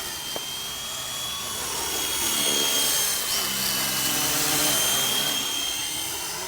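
WLtoys V912 fixed-pitch RC helicopter in flight: its small electric motor and rotors give a steady high whine that swells in the middle and fades toward the end.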